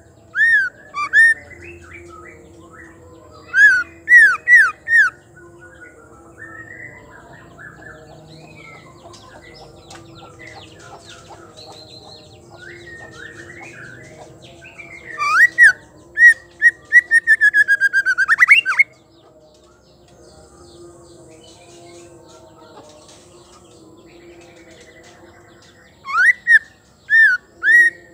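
White-rumped shama singing: bursts of loud, sharply upswept whistled notes, the longest a fast run of repeated notes a little past halfway, with soft twittering between the phrases.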